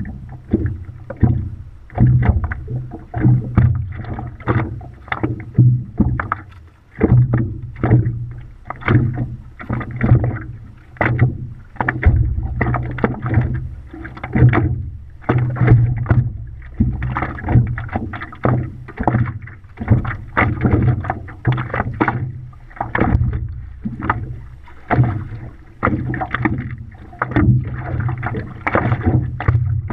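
Water lapping and splashing against a stand-up paddleboard as it is paddled, in irregular loud splashes about once a second.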